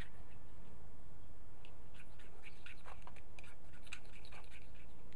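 Irregular short scratchy rasps of a blade scraped along the striker of a magnesium fire starter, throwing sparks at magnesium filings to light the twigs in a camping-kettle fire base. A steady low background noise lies underneath.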